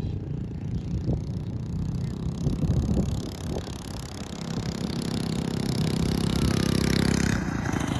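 Small pull-start engine of a homebuilt minibike running under way, growing steadily louder from about halfway through as it speeds up, then easing off near the end.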